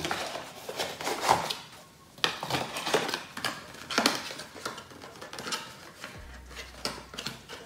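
Toiletry packaging being handled and rummaged through: irregular rustling and crinkling with light clatters and knocks.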